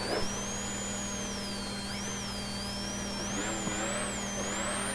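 Rally car's engine heard from inside the cabin, running hard along a straight; from about three seconds in its pitch climbs in short rising sweeps.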